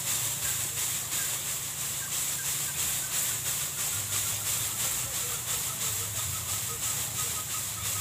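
Open rice-paddy ambience: a steady hiss with a high, even drone. From about two seconds in, a faint short note repeats several times a second.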